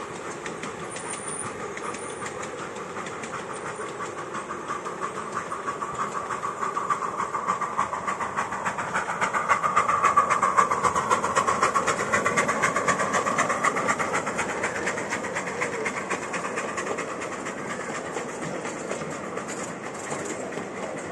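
Miniature steam locomotive and its passenger carriages running past on a miniature railway track: a steady clatter of wheels on the rails that builds to its loudest about halfway through as the engine passes, then slowly fades as the carriages roll by.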